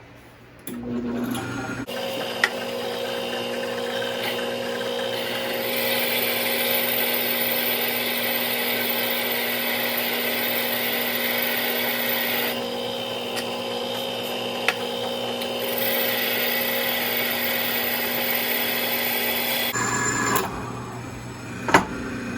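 Shopsmith set up as a drill press, its motor running with a steady hum while a small drill bit cuts into the vise's metal. A higher, rasping cutting noise comes in two long spells separated by a pause of about three seconds. The machine starts about two seconds in and shuts down a couple of seconds before the end.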